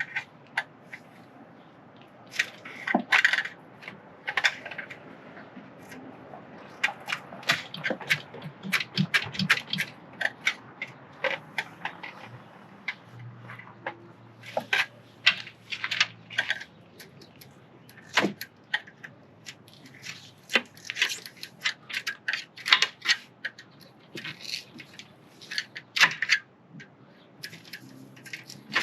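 Irregular clicks, taps and scrapes of a glued-in plexiglass panel being pried and worked loose from an RV screen door.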